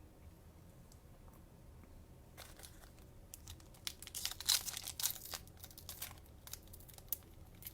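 Cellophane wrapper of a Mosaic basketball cello pack crinkling and tearing in a rapid run of crackles as it is worked open with difficulty, starting about two and a half seconds in.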